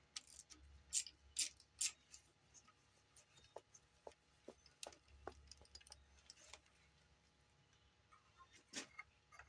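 Faint, scattered metallic clicks and ticks from a socket ratchet with an extension working valve cover bolts loose, with the louder clicks in the first two seconds and again near the end.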